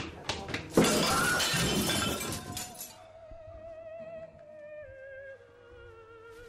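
Plates and wine glasses crash and shatter onto a table about a second in, with about two seconds of clattering breakage. It is followed by soft music carrying a single wavering melody line.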